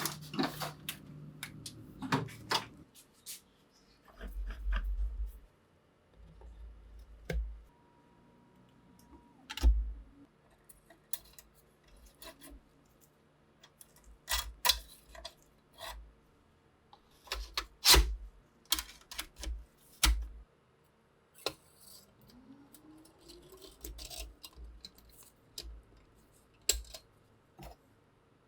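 Irregular clicks, clinks and taps of small metal rifle parts being handled, with a few dull low thumps in between.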